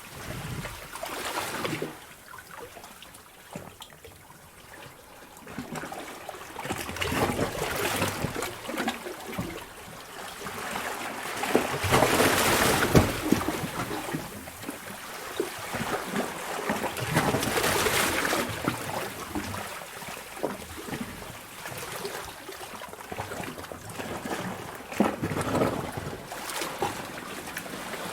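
Sea water surging in and out of a sea cave: waves swell and wash in every few seconds, with trickling and sloshing between the surges.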